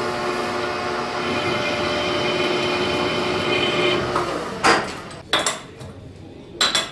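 Metal lathe running with a steady whine that stops about four seconds in, followed by three sharp metal clanks as the chuck is handled.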